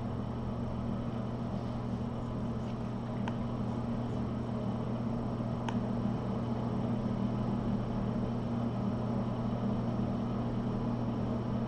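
Steady low hum with an even hiss, broken by two faint clicks a few seconds in.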